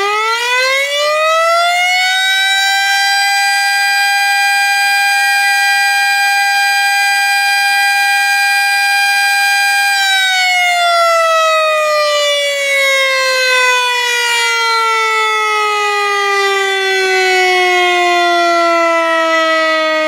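Tornado warning siren winding up to a steady high pitch over the first few seconds and holding it. About halfway through it winds slowly down in pitch.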